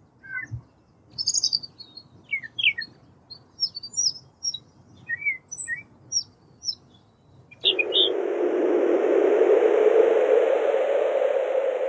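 Small birds chirping in short, scattered calls. About seven and a half seconds in, a steady, even noise starts suddenly and carries on.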